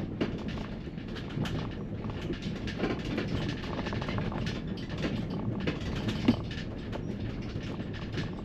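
Ford Transit cargo van driving slowly, heard from inside the cab: a steady low rumble with many small clicks and rattles.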